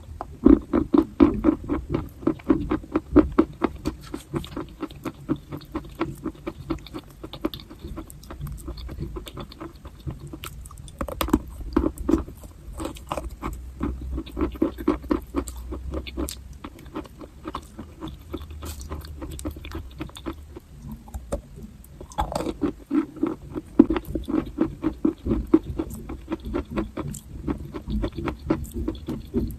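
Close-miked crunching and chewing of dry, chalk-like edible clay: rapid crisp crunches come in runs, with two short lulls between bites.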